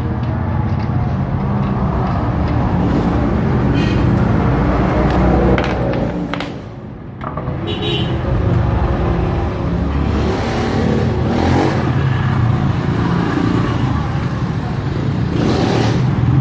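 Steady motor-vehicle engine rumble, with a few light metallic clinks as wheel lug nuts are taken off by hand.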